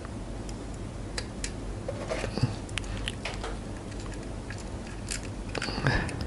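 Light clicks, taps and scrapes of a small plastic device case being handled while a tiny screw is set into it with a precision screwdriver, busier near the end, over a faint steady low hum.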